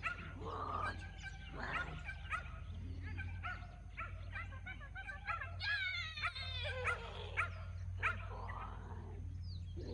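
Small dog yipping and barking excitedly over and over, high-pitched, with whining notes in between.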